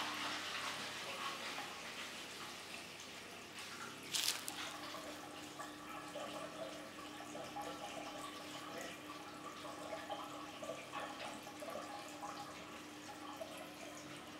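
Siemens iSensoric WM12N2K7GR front-loading washing machine mid-cycle: water trickling and dripping in the drum, with a single click about four seconds in followed by a steady low hum.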